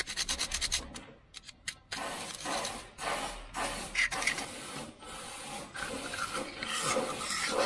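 A hand tool scraping and scrubbing a small metal brake part clean. There are quick rasping strokes, a short lull about a second in, then steady back-and-forth scraping.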